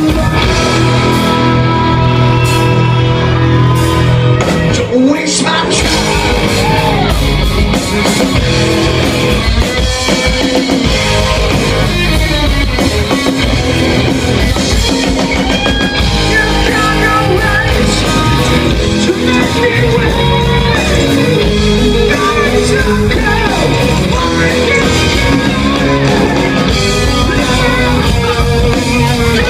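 Rock band playing live and loud, with electric guitar, drum kit and singing.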